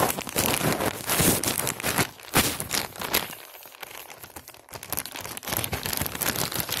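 Clear plastic poly bag crinkling and crackling as it is handled, loudest over the first three seconds, easing off briefly, then crinkling steadily again.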